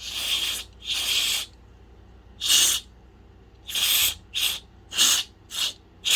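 WD-40 contact cleaner sprayed from an aerosol can in about eight short bursts of hiss into the openings of scratchy volume potentiometers, to clean their worn, crackly tracks. The first two sprays last about half a second each, and the later ones are quicker and closer together.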